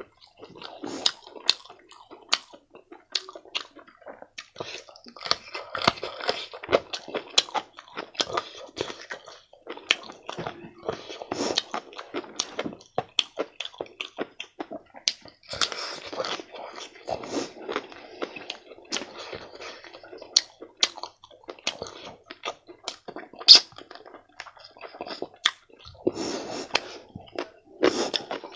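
Close-miked chewing and eating: irregular wet mouth smacks and clicks, with a few short louder crunchy bites.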